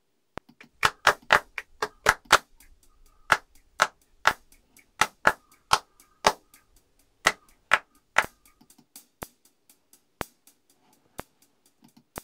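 Playback of a clapped drum part: recorded hand claps together with closed hi-hat hits from a sampled drum kit, triggered by MIDI that drum replacement made from the claps. The sharp hits come in an uneven groove and thin out to single quiet ticks about once a second near the end.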